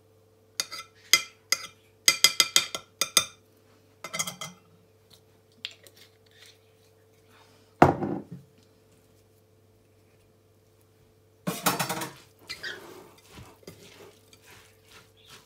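A metal teaspoon clinks several times against the rim of a mixing bowl with a short ring after each tap. There is one heavier knock about eight seconds in. Near the end a silicone spatula stirs and scrapes through a moist rice-and-herb filling in the bowl.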